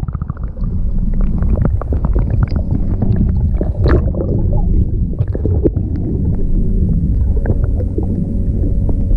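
Underwater sound from a camera held beneath the surface at a boat's stern: a steady low rumble of moving water against the camera housing, with scattered clicks and knocks throughout.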